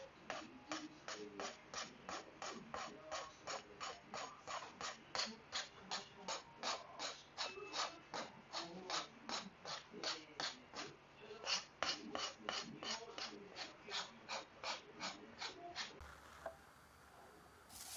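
Aritsugu santoku blade stroked back and forth on a whetstone, an even scraping rhythm of about three strokes a second that stops near the end.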